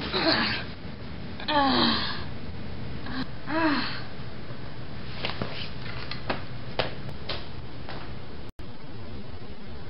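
A boy groaning and gasping in mock pain: a breathy gasp at the start, then two short moans that rise and fall in pitch in the first four seconds. After that there is a steady hiss with scattered small clicks.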